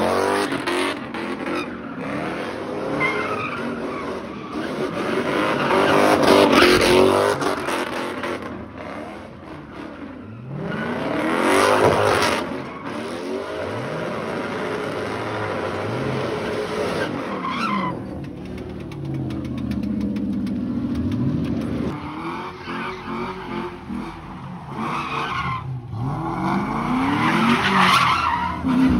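Cars spinning donuts: engines revving up and down in repeated swells over continuous tyre squeal, loudest in several surges as the cars pass close.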